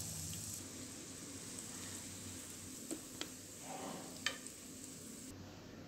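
Hot oil sizzling faintly in a frying pan as fried chicken pieces are lifted out with a metal slotted spoon. Three light clinks about three, three and a quarter, and four and a quarter seconds in, the last the loudest.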